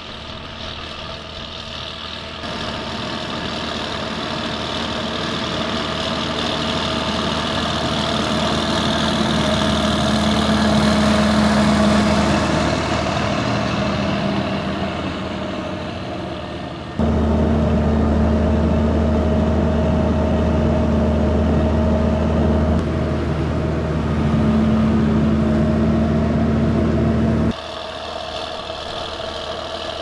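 Schlüter Profi Trac 3500 TVL tractor's 11.5-litre MAN diesel engine running steadily under load, pulling a five-furrow plough. It grows louder as the tractor draws near, then fades. The level jumps abruptly louder about halfway through and drops back near the end.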